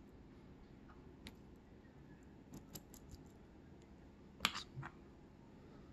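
Small brass lock pins and drivers clicking against an aluminium pin tray as they are placed in its slots: a light tick about a second in, a quick run of small clicks around the middle, and a sharper double click near the end.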